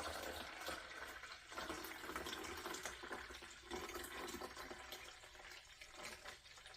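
Cold water pouring from a coffee carafe into a drip coffee maker's water reservoir, a steady splashing stream that tapers off near the end.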